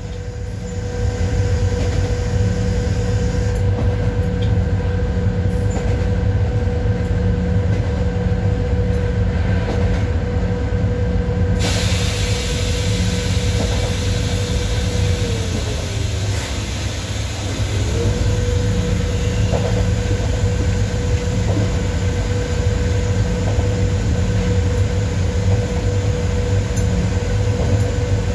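ET22 electric freight locomotive under way, heard from the cab: steady rumble of wheels on rail with a steady hum from the locomotive's machinery. About 15 s in the hum slides down in pitch, then jumps back up a couple of seconds later. A brighter hiss comes in about 12 s in.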